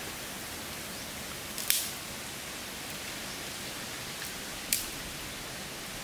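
Open wood fire crackling: two sharp pops about three seconds apart over a steady hiss.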